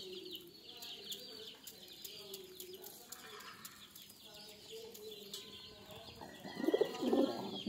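Chickens clucking softly and pigeons cooing as they feed, faint, growing louder in the last second.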